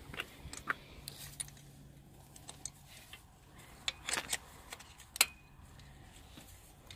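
Scattered light metallic clicks and knocks of hand tools being handled on a motorcycle cylinder head, with a small cluster a little past four seconds in and the sharpest click about five seconds in. A faint steady low hum runs underneath.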